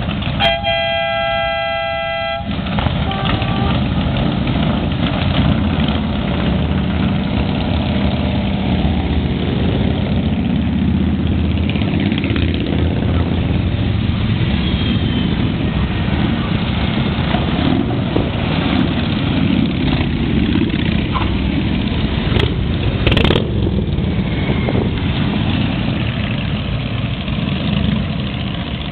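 A column of cruiser motorcycles riding slowly past, their engines running with a low, steady sound. A horn sounds for about two seconds right at the start.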